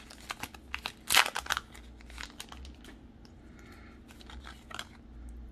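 Foil wrapper of a Pokémon card booster pack crinkling and crackling as it is torn open and the cards are pulled out, loudest about a second in. After about three seconds it goes quieter, with only a few soft ticks as the card stack is handled.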